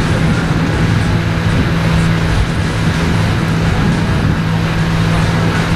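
Motorboat engine running steadily at cruising speed, with water and wind rushing past the open boat.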